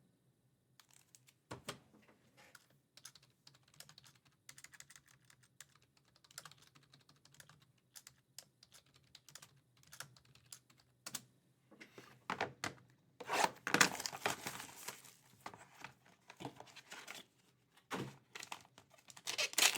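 Cardboard and plastic trading-card packaging being handled, with scattered small clicks and taps. About 13 seconds in there is a louder stretch of ripping and rustling as the next box is torn open.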